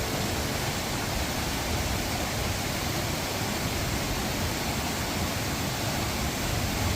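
Mountain stream rushing over rocks in a valley: a steady, even rush of water.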